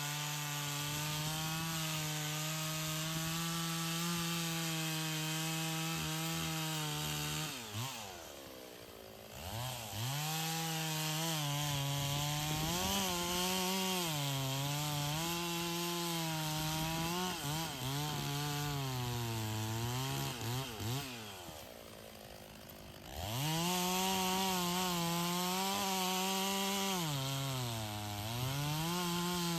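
Stihl two-stroke chainsaw cutting through logs, its engine held at high revs under load with the pitch wavering as the chain bites. Twice, about 8 seconds in and again near 22 seconds, it drops off the throttle and quietens, then revs back up into the cut.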